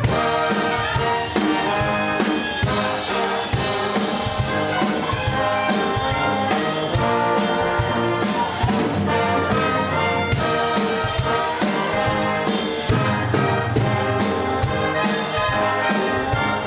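Live brass band playing an upbeat tune, trumpets and trombones over a drum kit.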